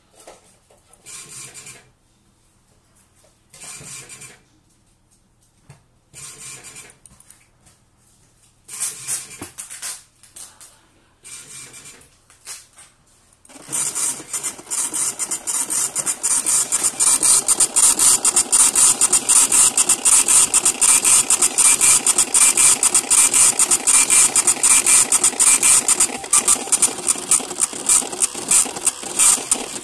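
Xprinter 76 mm dot-matrix receipt printer printing a test page: the print head strikes with a fast, rasping, regularly pulsing buzz that starts about fourteen seconds in and keeps going. Before that there are only a few brief scratchy noises.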